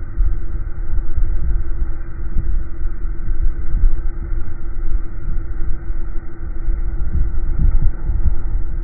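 Window air conditioner running: a steady hum over a heavy, unsteady low rumble of the fan and airflow.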